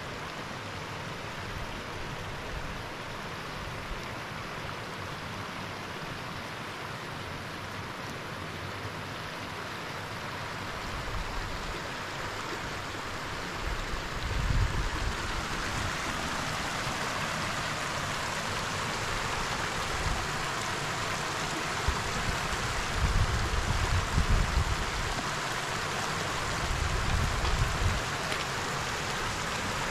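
Shallow, rocky river running over stones: a steady rush of water that gets somewhat louder in the second half. Low rumbles and thumps come now and then from about halfway through.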